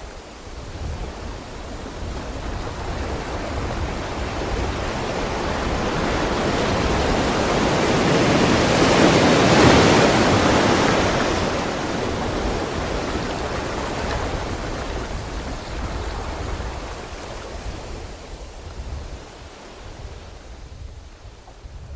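Loud rushing noise over a low rumble, swelling slowly to its loudest about ten seconds in and then gradually fading.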